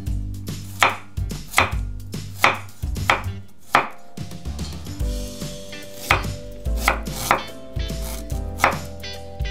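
Chef's knife slicing garlic cloves and then ginger on a wooden cutting board, each cut ending in a sharp knock on the wood, a little faster than one a second, with a short pause near the middle.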